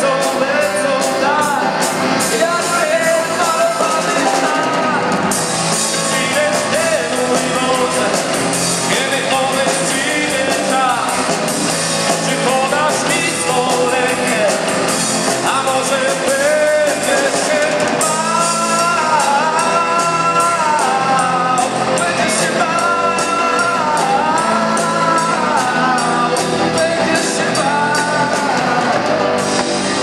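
Live rock band playing a blues-rock song: electric guitars, keyboard and drum kit with busy cymbals, with a lead melody line bending in pitch over them, most prominent in the second half.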